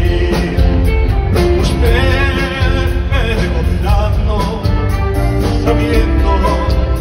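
Live band with electric bass and drums playing while a male singer sings into a microphone, holding long wavering notes.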